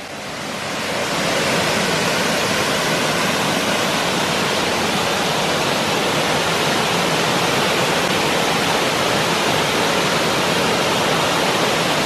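Waterfall rushing steadily as its water slides down a tall rock face. The sound swells in over the first second or so, then holds an even, loud rush.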